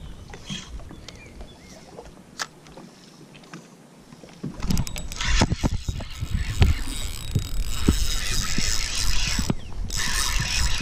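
Spinning reel being cranked close to the microphone, a dense whirring with rapid small clicks from the rotor and gears. It starts about halfway through after a few faint ticks and pauses briefly near the end before carrying on.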